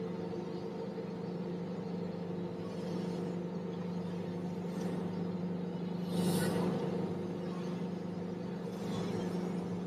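Tracked excavator's engine running steadily while the upper structure slews round under hydraulic power, with a brief hiss about six seconds in.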